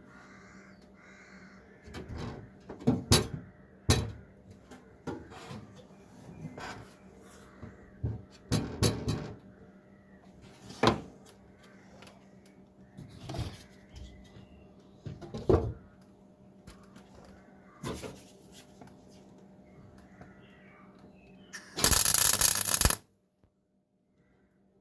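Irregular knocks and clicks of metal parts and hand tools being handled, over a steady electrical hum, with a loud burst of hissing noise lasting about a second near the end.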